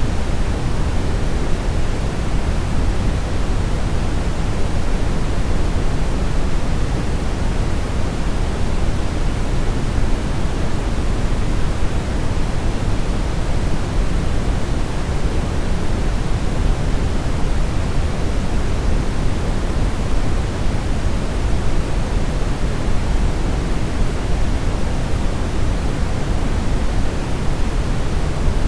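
Steady brown noise: an even, unchanging rush, deepest and loudest in the low end and thinning out toward the highs, with no tones or events.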